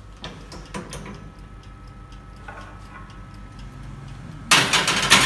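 A few light clicks and knocks, then about four and a half seconds in a loud scrape of a glass baking dish sliding onto the oven's metal wire rack, lasting about a second.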